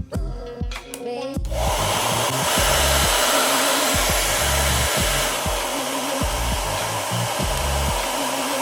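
BaByliss Pro Excess-HQ Ionic hair dryer switched on about a second and a half in, then blowing with a steady, loud rushing sound over background music with a beat.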